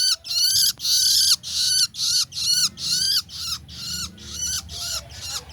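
Young long-tailed shrike (cendet) giving harsh, rasping calls over and over, about two a second, growing fainter toward the end.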